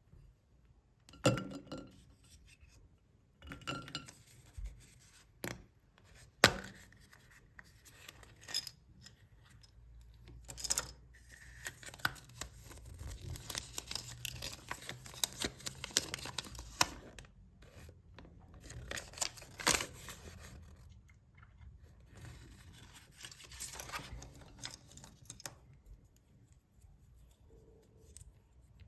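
Chocolate eggs' foil wrappers crinkling and tearing as they are unwrapped, in irregular bursts, with a few sharp clicks and knocks from the plastic toy capsules and toys being handled.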